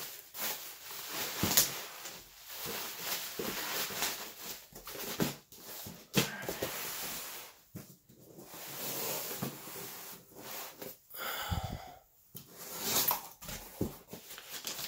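Plastic bubble wrap and crumpled paper packing rustling and crackling as a coilover shock is rewrapped and boxed and a cardboard box is opened, with irregular knocks of the box and parts being handled.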